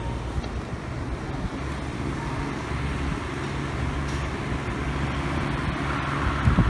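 Air circulator fan running: a steady rush of air over a low hum. Near the end its airflow starts buffeting the microphone in gusty low rumbles.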